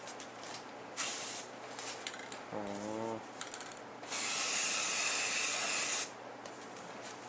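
Aerosol spray can hissing into the inside of a sponge-foam puppet head: a short burst about a second in, then one steady spray of about two seconds in the second half.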